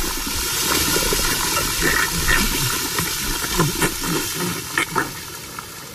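Sound effect of rushing, sloshing liquid with a steady hiss and scattered short splashes, fading away near the end.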